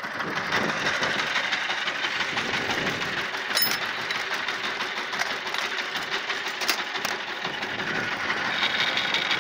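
Shifeng SF350L tractor's diesel engine running under way, heard from the operator's seat, with a steady mechanical clatter. Two sharp clicks come partway through.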